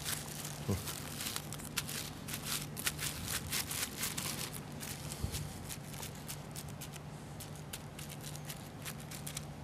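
Thin plastic sheet crinkling and rustling in many short crackles as hands press and smooth it down over soft food. A faint steady low hum runs underneath.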